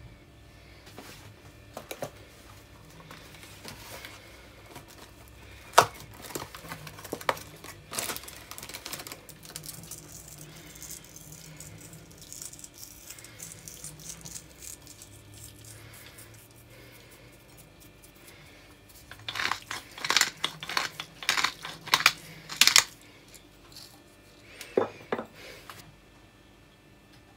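Dry kitchen-counter handling sounds of seasoning a salad: scattered light clicks and taps, with Maldon sea-salt flakes crumbled between the fingers. A little past two-thirds through comes a run of quick gritty cracks lasting about three seconds, from a pepper mill grinding.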